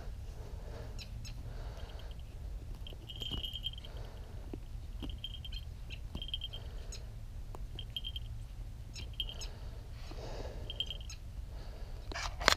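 Goshawk feeding on a jackrabbit carcass: soft tearing and rustling of fur with small clicks of beak on flesh. Short, high chittering calls repeat every second or so. A steady low rumble runs under it, and a couple of louder sharp clicks come near the end.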